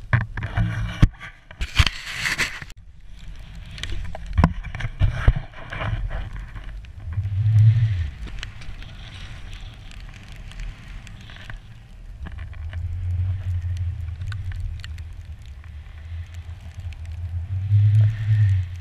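Skis running through deep powder snow, a hiss that swells and fades, with wind buffeting the action-camera microphone and scattered knocks from the camera mount. A loud burst of hiss comes about two seconds in.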